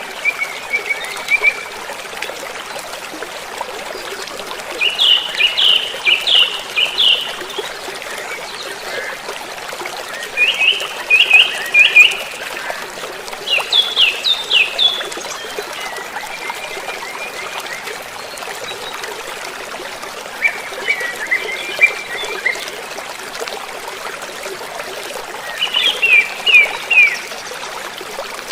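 Steady trickle of running water, with a bird calling over it. The bird's calls come in short series of four to six quick notes that slur downward, repeated every few seconds.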